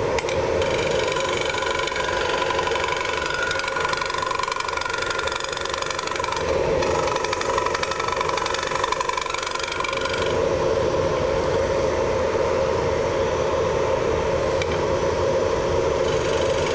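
Wood lathe running steadily while a carbide-tipped Easy Finisher tool cuts into the inside of the spinning wooden bowl. The cutting noise is heaviest from about half a second in until about ten seconds, then lighter, over the lathe's steady hum.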